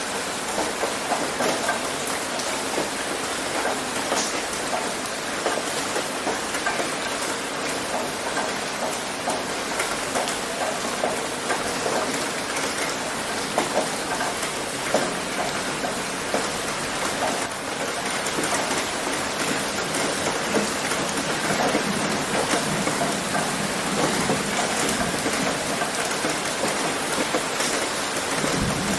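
Heavy rain hitting a roof: a steady, even hiss of rain with many individual drop hits.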